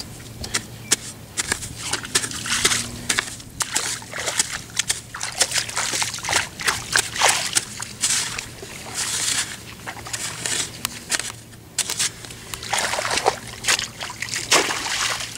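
A hand hoe chopping and scraping into wet, muddy soil, with irregular strikes and swishes.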